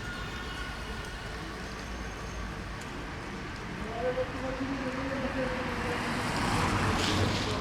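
A car passing on the wet street. Its tyre hiss swells to its loudest near the end, then eases off.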